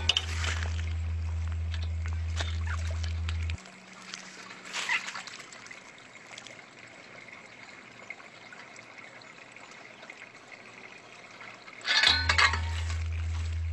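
A garden rake swishing and splashing through pond water and reeds to flush out frogs, with frogs splashing into the water, probably bullfrogs. The splashes come in three bursts: one at the start, one about five seconds in, and the loudest near the end.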